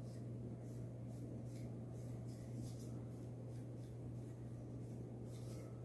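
Wooden stir stick scraping and swishing around inside a small metal can of thick gel stain, in faint, irregular strokes over a steady low hum.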